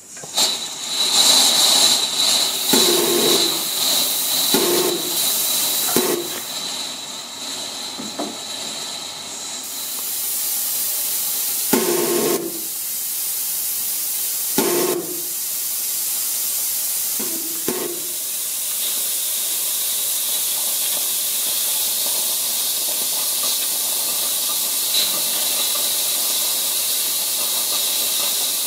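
Coal-fired gauge 1 live-steam model locomotive hissing steam as a valve lever in the cab is opened, with a thin high whistle-like tone in the hiss at first. A few short, irregular puffs of steam come through in the first two thirds, then a steady hiss carries on.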